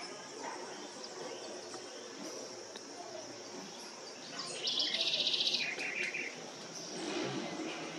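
A bird's short, rapid, buzzy chatter a little past halfway, lasting about a second with a lower-pitched tail, over a steady high-pitched insect drone.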